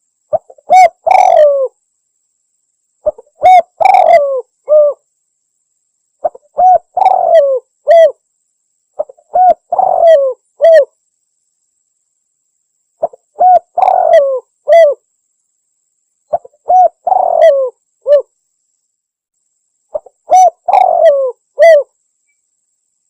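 Spotted dove (tekukur) cooing a repeated lure call: seven phrases of several short, falling coo notes, about one phrase every three seconds with silence between them.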